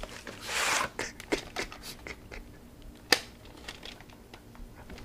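A VHS cassette being slid out of its cardboard sleeve and handled: a brief rustle of cardboard, then a series of light clicks and taps of hard plastic, the sharpest about three seconds in.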